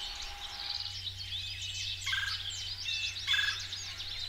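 Red-bellied woodpecker giving two short rolling calls about a second apart, the spring call of a male to his mate, over the chirping of other small birds.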